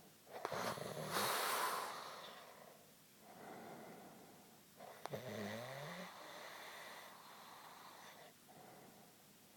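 A man snoring loudly in his sleep: a loud rasping snore about half a second in, a softer breath a few seconds later, and another snore with a wavering pitch around five seconds in.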